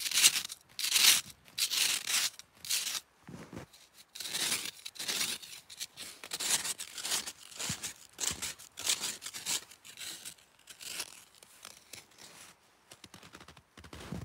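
Snow crunching and scraping as bare hands dig into snow, push a snow stake in and pack snow over it to bury it. It comes in irregular bursts that grow fainter in the last few seconds.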